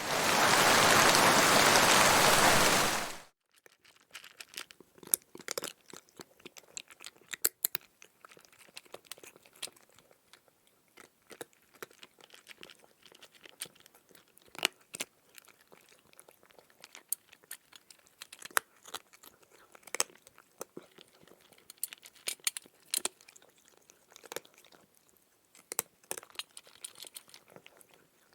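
A loud burst of even noise for about three seconds, then a cat eating: irregular chewing with sharp clicks and crunches.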